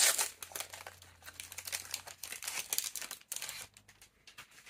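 Foil wrappers of Lorcana trading-card booster packs crinkling and crackling as they are pulled open by hand, loudest at the start and thinning out over the last second or so.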